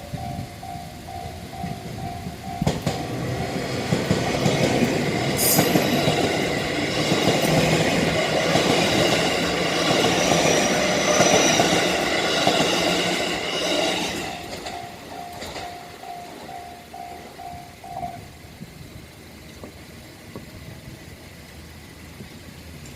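Japanese railroad crossing bell dinging about twice a second as a JR West 207 series electric commuter train passes through the crossing. The train's noise builds and drowns the bell for about ten seconds. The bell is heard again as the train fades and stops about three-quarters of the way through.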